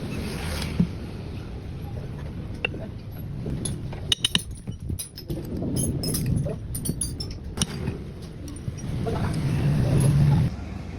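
Metal tools and parts clinking and tapping during workshop work, with a quick cluster of sharp clicks about four seconds in, over a low background hum.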